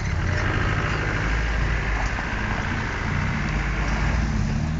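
Land Rover Defender engine running as the 4x4 tips over and crawls down a steep quarry bank, mixed with a steady rushing hiss.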